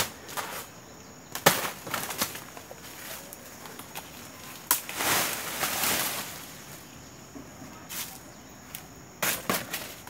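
Dry banana leaves and stalks rustling and crackling as a wind-felled banana plant is cut up and its leaves are handled. Several sharp knocks are scattered through, with a longer swell of rustling about five seconds in and a quick cluster of knocks near the end.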